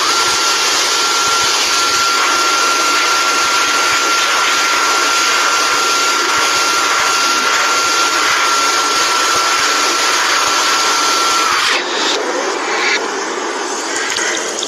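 Dyson Airblade dB hand dryer running at full power, played backwards: a loud, steady rush of air with a high steady whine. About twelve seconds in, the dryer stops and water from a tap runs.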